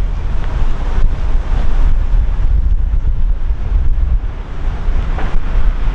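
Wind buffeting the microphone: a loud, gusting low rumble that rises and falls unevenly.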